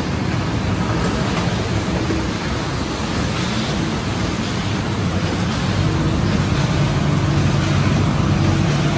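1987 MAN Roland 802 two-colour sheet-fed offset press with coating tower running, a steady mechanical noise with a low hum that grows a little louder in the last few seconds.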